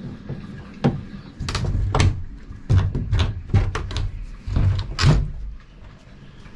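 Sharp knocks and clicks, about a dozen spread over several seconds, as a wooden cabinet door is handled and unscrewed from its hinges with a screwdriver.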